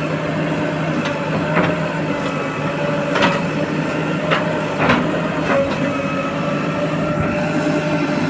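Steady engine drone with a set of sharp knocks, about six of them between one and six seconds in.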